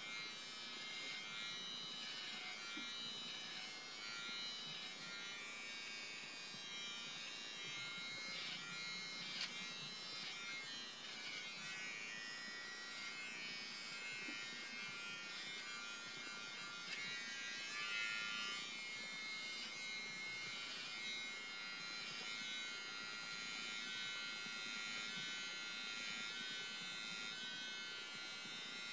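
BaByliss for Men i-stubble electric trimmer running with a steady buzz, its blades cutting hair as it is moved over the face and head.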